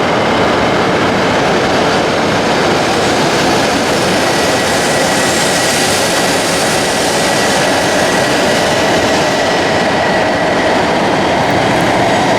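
Shinkansen train running at the platform: a steady, loud rushing noise, with a faint high whine from about four seconds in until near the end.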